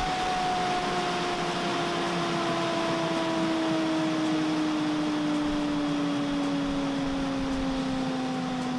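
Fuji Paudal Pulverizer hammer mill with a steady whirring hum whose two tones slowly fall in pitch as the rotor winds down.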